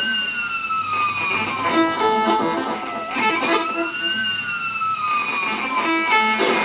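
Analog synthesizer module playing a looping electronic pattern. A siren-like tone swoops up and then slowly sinks, repeating about every three seconds, over a sequence of short stepped blips and bursts of hiss. The circuit is meant to be a stair-step circuit driven by a pulse generator, which the builder isn't sure is working right.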